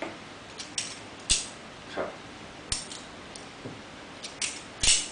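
Balisong (butterfly knife) being flipped by hand: its metal handles and blade clicking and clacking against each other, several sharp clicks at irregular spacing, the loudest near the end.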